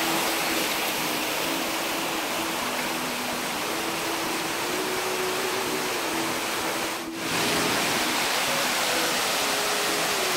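Steady rush of water flowing over rocks in a shallow mountain stream. The sound dips briefly about seven seconds in and comes back slightly louder.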